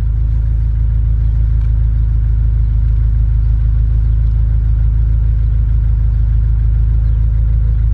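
Car engine idling steadily, a low even drone.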